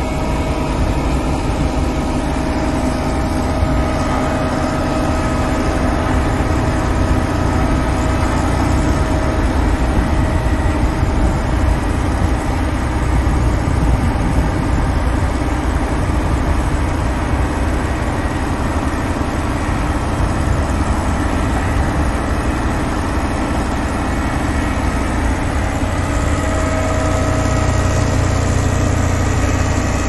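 Dynapac CA305 single-drum vibratory soil compactor working a gravel road base: its diesel engine runs steadily under a dense low drone from the vibrating drum. The low end grows heavier near the end as the roller passes close by.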